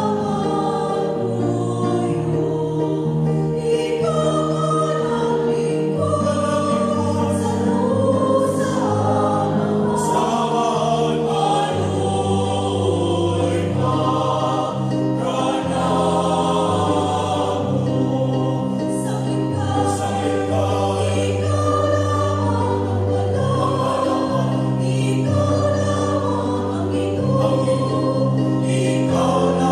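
Mixed choir of men's and women's voices singing in parts, accompanied by an electronic keyboard holding steady chords and bass notes.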